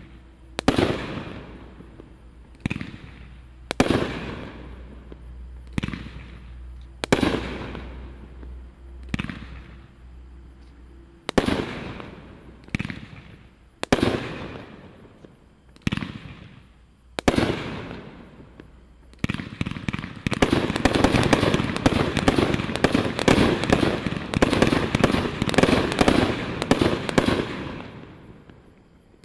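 Brothers Pyrotechnics Medalist 30-shot, 500 g fireworks cake firing: sharp single bangs about every second or two, each with a fading tail. About two-thirds of the way through they give way to a dense, rapid volley of shots, the cake's finale.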